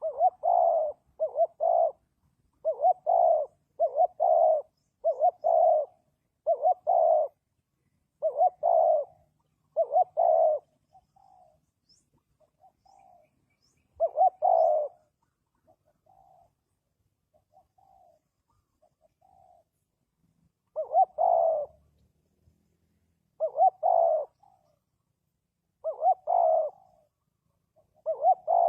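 Spotted dove cooing: repeated low, hoarse coo phrases in loud groups with short pauses, and softer short coos in the middle stretch.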